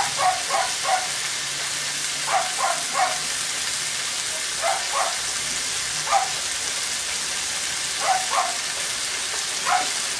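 Vegetables sizzling steadily in an oiled wok, with a dog barking over it in short runs of one to three barks every couple of seconds.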